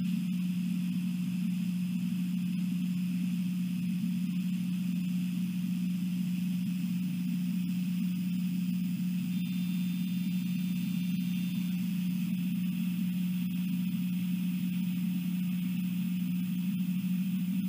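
A steady low hum that never changes, over a fainter, higher steady hiss, with a few faint high tones about halfway through.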